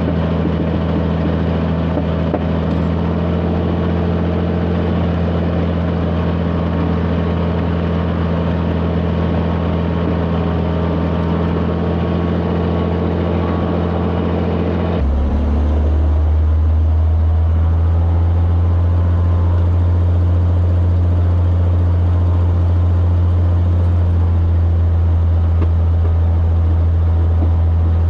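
Cirrus SR22's six-cylinder engine running steadily at run-up power, from an engine running lean and rough on cylinder 2 because of a missing fuel-injector gasket. About halfway through the sound changes abruptly: the hiss falls away and the low drone grows louder.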